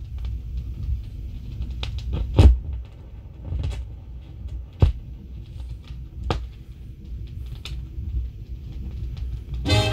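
Gap between cuts on a 16-inch transcription disc playing on a Gates CB-500 turntable: the stylus runs in the blank groove, giving a low rumble with a few scattered clicks and pops. A jingle starts just before the end.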